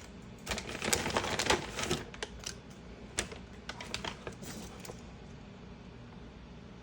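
Dry clicking and crackling of dried herbal medicine ingredients being handled by hand during compounding: dense for about two seconds, then scattered clicks that die away after about five seconds.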